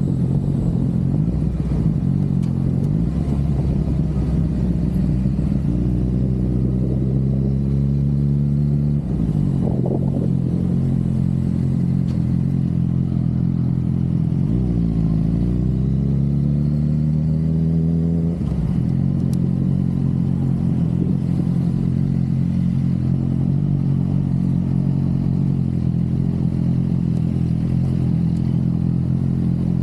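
Honda CB500 parallel-twin motorcycle engine running under way. The revs build and break at a gear change about nine seconds in, dip and climb again as the bike slows and pulls away around fifteen seconds, shift again near eighteen seconds, then hold steady while cruising.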